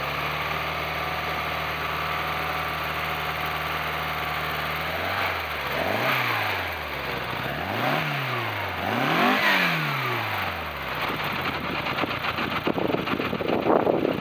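Porsche 356 Carrera 2's air-cooled two-litre four-cam flat-four running steadily, then blipped three times by hand at the throttle linkage, each rev rising and falling back, before dropping back to idle.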